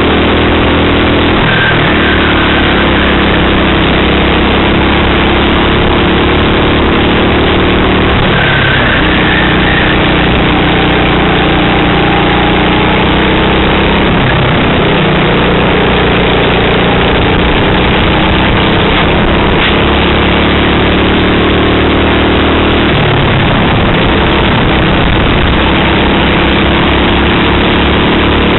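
Racing kart engine heard from on board the kart at race speed, loud and steady. Its note drops sharply four times, as the driver lifts off into corners, and climbs again as he accelerates out.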